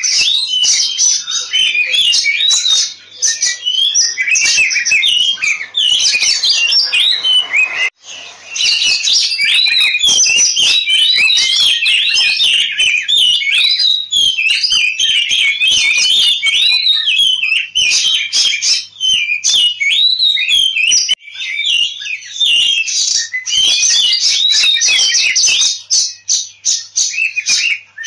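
Oriental magpie-robin singing a loud, nonstop song of quick rising and falling whistles and chirps, with one short break about eight seconds in. This is the aggressive 'ngobra' fighting song, the bird in full combative song mode.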